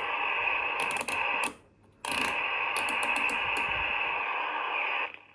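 Tokai TC 5011 AM CB handheld's speaker hissing with scratchy receiver static, with sharp switch clicks. The static cuts out about a second and a half in, comes back half a second later with a click, and stops again near the end.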